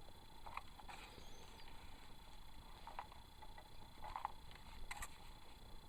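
Faint handling noises from opening a package: a few short, quiet rustles and taps spread out, with the sharpest tap about five seconds in.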